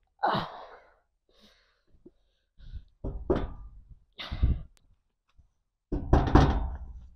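A man's strained sighs and groans in short bursts a few seconds apart, from the discomfort of badly needing to urinate. Near the end comes a louder burst as he slaps the toilet door.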